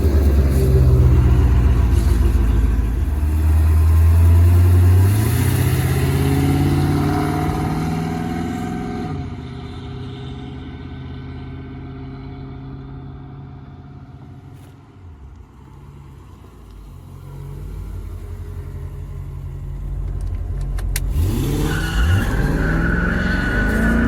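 Porsche 928S V8 accelerating hard, its pitch climbing through the gears, then fading away into the distance. Near the end the engine sound swells back and sweeps quickly in pitch as a car passes close.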